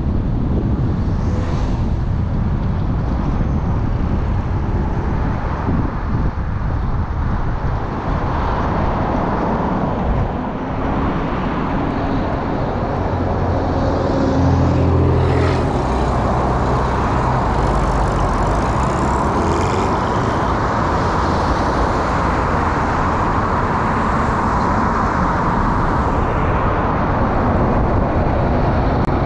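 Car driving along a road: steady engine and tyre noise. A deeper engine sound swells about halfway through.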